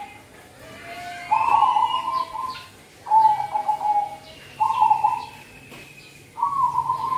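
Zebra dove (perkutut) cooing: four short, rippling phrases about a second and a half apart, with faint chirps of small birds above them.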